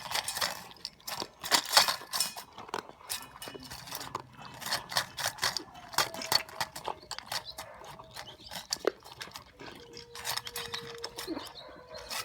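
Dalmatian puppy eating, a dense irregular run of crunches and clinks against its bowl, with a brief faint whine near the end.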